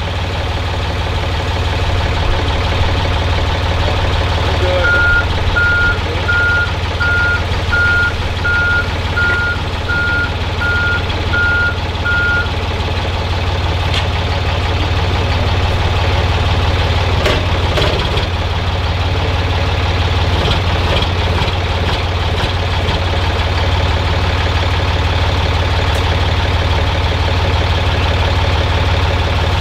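Truck engine idling steadily, with a reversing alarm beeping about eleven times, evenly spaced at roughly one and a half beeps a second, from a few seconds in. A few metal clanks come around the middle.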